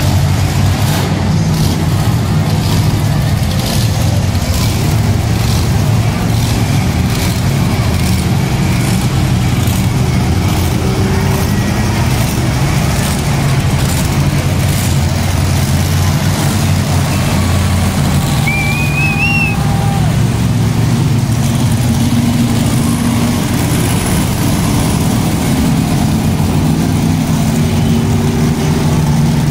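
Monster truck engine running loud with a steady low rumble. A brief high warbling tone comes through about eighteen seconds in.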